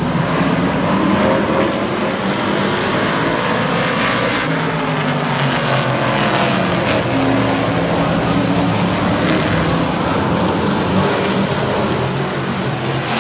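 Super Truck race engines running hard as the trucks race around the oval, several engines overlapping with notes rising and falling as they pass.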